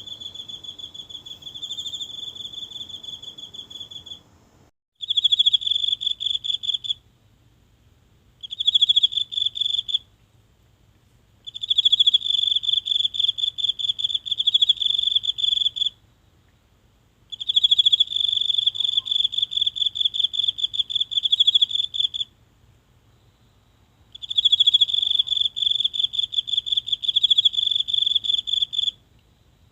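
A single insect singing close up: high-pitched trills of rapid pulses in bouts of two to five seconds, with short silent pauses between them.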